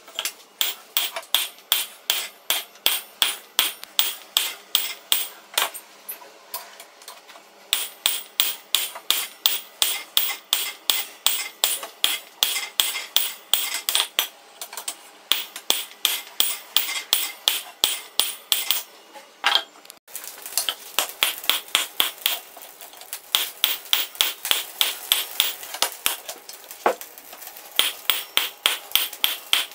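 Hand hammer forging a piece of suspension coil spring steel: rapid, steady blows at about three a second, each with a bright metallic ring, in runs broken by brief pauses about a quarter of the way in and about two-thirds of the way in.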